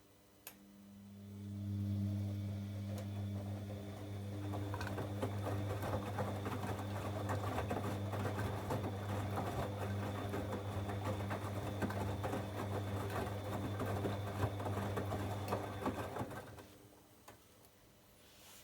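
Bosch Avantixx 7 Sportline WAQ2849S washing machine turning its drum in the wash rhythm. The drive motor starts with a click and hums steadily while the wash load tumbles with a dense crackling, then it stops about sixteen seconds in.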